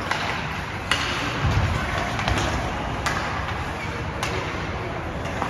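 Ice hockey game in an echoing rink: steady arena hum with three sharp clacks of sticks and puck, about one, three and four seconds in.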